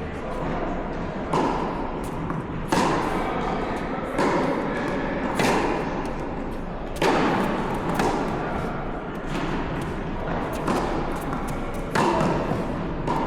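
Tennis rally: a ball struck back and forth with rackets, about nine sharp hits roughly every second and a half, with fainter ball bounces between them.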